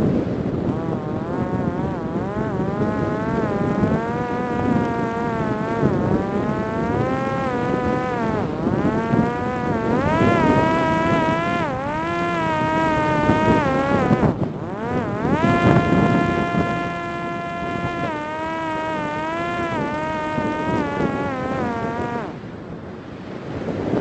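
Electric motor and propeller of a Parrot Disco fixed-wing drone whining, the pitch rising and falling again and again with the throttle, held steady for a few seconds past the middle and fading out near the end. Wind rushes on the microphone throughout.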